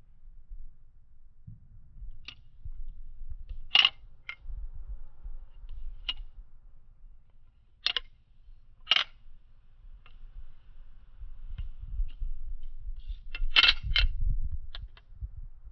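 Balisong (butterfly knife) being twirled: sharp metallic clacks of the handles swinging shut and knocking against the blade at uneven intervals, a few of them loud, over a low rumble of handling noise.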